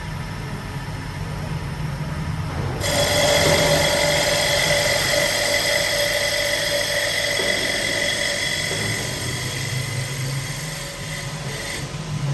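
CNC wood lathe machining a wooden cup. A low motor hum runs throughout. About three seconds in, a loud high-pitched whine and cutting hiss start suddenly as the spindle tool works the wood, then stop near the end.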